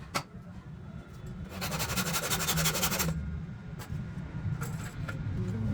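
Wood being worked with hand tools: a few separate sharp knocks, and about a second and a half of rapid, rattling strokes near the middle.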